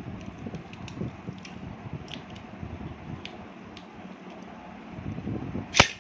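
Beyblade spinning tops running in a shallow plastic lid, a low rumble with scattered light clicks as they strike the rim and each other. One sharp clack near the end as the two tops collide.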